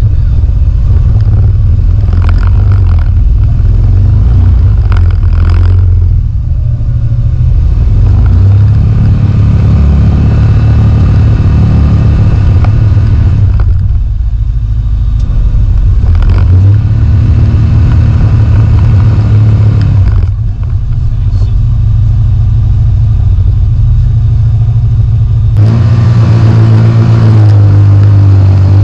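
Side-by-side UTV engine running loud and close, rising and falling in pitch as it is revved several times, with brief let-offs in between and the highest revs near the end.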